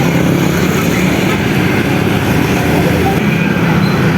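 Heavy road vehicle's engine running steadily with road noise, a low hum and no horn sounding.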